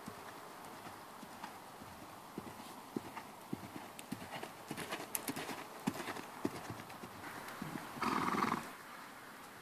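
A ridden horse's hoofbeats on a sand arena, an uneven run of soft knocks as it trots and then eases off. About eight seconds in there is one short, louder snort from the horse.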